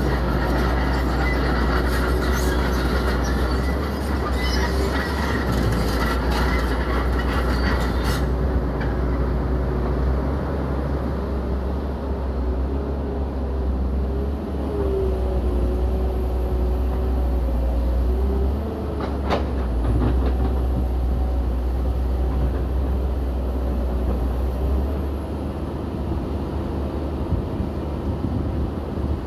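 Heavy tracked earthmoving machine working, its diesel engine a steady low drone under a wavering whine. Metal track clatter and scraping of rock fill the first several seconds, then stop abruptly, and a single sharp knock comes past the middle.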